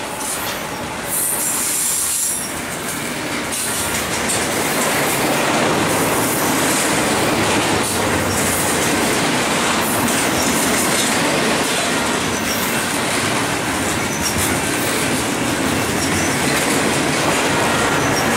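Double-stack container well cars of a freight train rolling past: steady wheel-on-rail roar and clatter, with a high wheel squeal about a second in.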